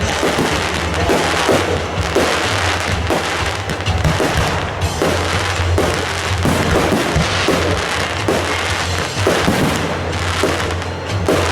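Fireworks and firecrackers going off nonstop in a dense crackle of many sharp pops and bangs, over a steady low hum.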